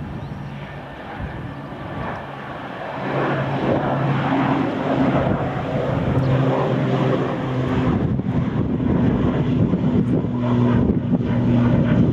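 Airliner engines running with a steady low drone and rushing noise that swells about three seconds in and stays loud.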